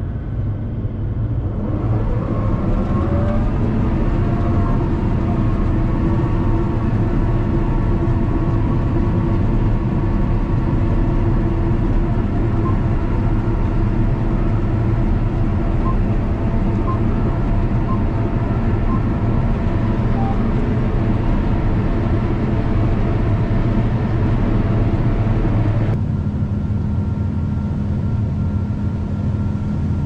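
John Deere combine running while harvesting corn, heard from inside the cab: a steady engine and machinery drone, with a rising whine about two seconds in. Near the end the drone changes to a different steady tone.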